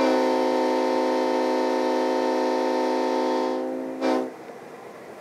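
A 1956 Northern Pacific diesel locomotive's air horn sounds in one long blast of about three and a half seconds, then a short second blast about four seconds in.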